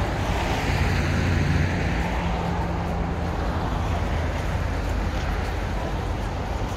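Street traffic: a motor vehicle's engine hum swells as it passes about a second in and then fades, over a steady wash of city traffic noise.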